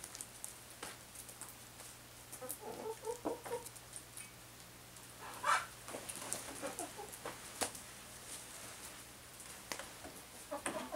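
A flock of backyard hens clucking softly, in scattered short calls, with a few sharp clicks in between.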